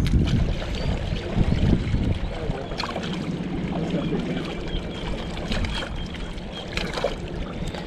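Wind buffeting the microphone over small waves lapping against shoreline rocks, with a few faint clicks. A low steady hum joins about three seconds in.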